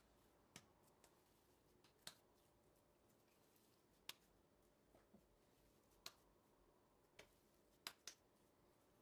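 Faint, sharp clicks, about one every one to two seconds, over near silence.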